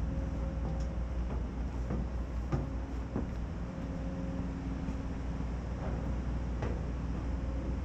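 Steady low rumble of outdoor background noise on an industrial construction site, wind on the microphone mixed with a faint steady machine hum, with a few faint knocks.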